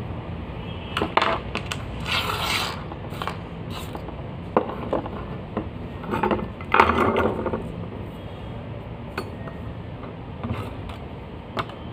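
A waffle maker's circuit board and small tools being handled on a workbench: scattered clicks, light knocks and short scrapes, the busiest between about two and seven seconds in, over a steady low hum.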